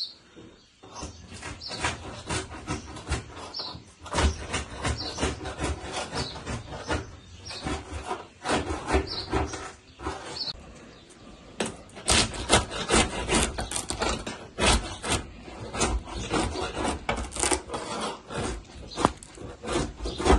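Hand scraping and rubbing against the inside of a clay tandir oven: quick, rough strokes, several a second, with a short pause about ten seconds in.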